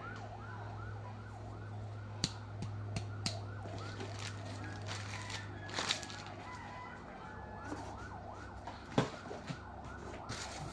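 A siren in a fast rising-and-falling yelp, about three sweeps a second, over a steady low hum. A few light clicks and knocks of parts being handled sound over it, the sharpest about nine seconds in.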